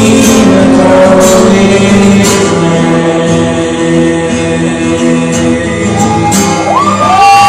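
Acoustic guitar strummed with singing, in the song's closing bars. Whoops from the audience start about a second before the end.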